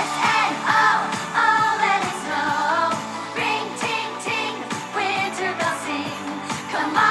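Pop song with a singing voice over a steady beat, with bright bell-like accents.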